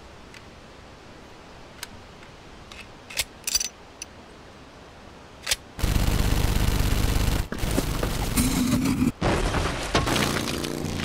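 Gunfire sound effects: a few single shots, then about six seconds in a dense burst of rapid automatic fire mixed with booms.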